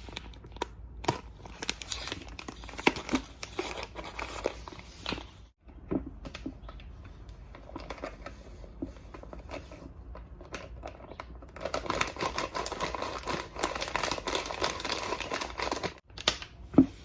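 Plastic packet of naan mix crinkling and being torn open, with light handling clicks. A denser stretch of rustling starts about twelve seconds in and lasts some four seconds.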